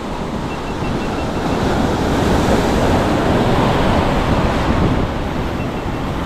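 Sea surf washing in, with wind buffeting the microphone; the wash swells about two seconds in and eases off near the end.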